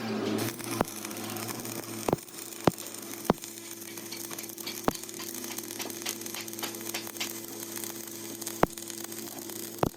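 A steady mechanical hum with a faint crackling hiss, broken by several sharp knocks on metal at irregular intervals.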